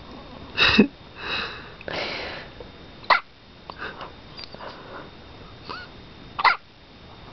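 Newborn baby hiccupping: three short, sharp hiccups about three seconds apart, with soft breathy sounds and small squeaks between them.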